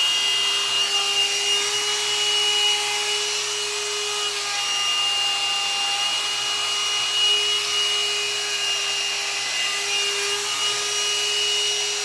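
Hot-air dryer brush running steadily: a small motor's whine with an even rush of blown air.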